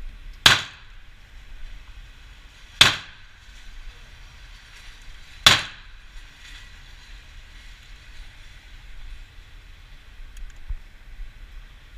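Three shots from a Glock 17 9mm pistol, fired slowly about two and a half seconds apart, each a sharp crack with a short ringing tail; then only faint background noise.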